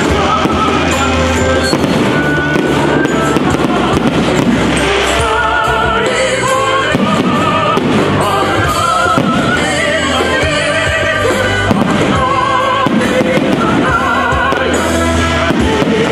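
Music with a sustained bass and wavering melody lines, with the bangs and crackle of a fireworks display mixed in.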